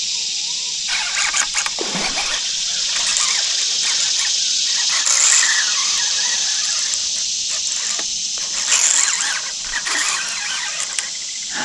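A fishing reel's drag squealing as a hooked striped bass pulls line off against the bent rod, surging louder about five and nine seconds in.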